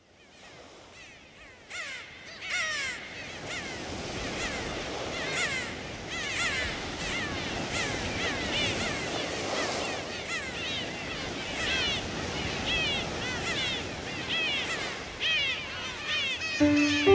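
A chorus of many birds chirping, short repeated arching calls over a steady background hiss, fading in from silence over the first couple of seconds. Piano music comes in just before the end.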